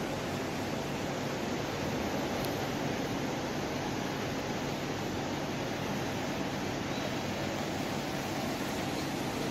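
Steady room noise of a large, nearly empty shopping-mall atrium: an even hiss with a faint low hum underneath.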